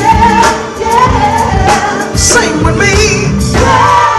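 Live soul/R&B music: a woman singing the lead melody over a full band.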